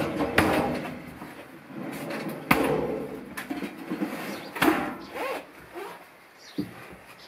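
A few sharp, irregular knocks and clicks, like handling noise or fittings being bumped, with rustling between.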